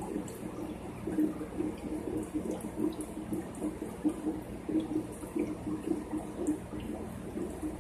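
Aquarium water circulation, most likely the filter: a steady, fluttering splash and bubble of moving water over a faint low hum.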